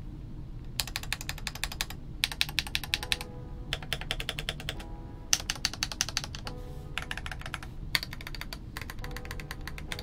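Typing on a Royal Kludge RK96 mechanical keyboard with Gateron Yellow linear switches: quick runs of key clacks in about six bursts, with short pauses between them.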